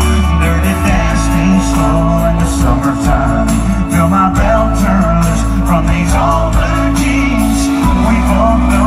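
A song with a sung vocal over a steady band accompaniment and bass.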